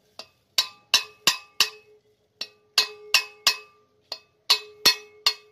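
Sharp metallic taps on the valve tops of a Hyundai 1.2 Kappa aluminium cylinder head, each ringing briefly, in runs of three to five at about three a second with short pauses between runs. This is typical of seating the collets on freshly fitted valves.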